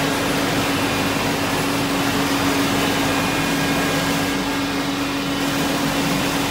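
Maize flour milling plant with its roller mills running: steady machine noise, one constant hum over an even hiss.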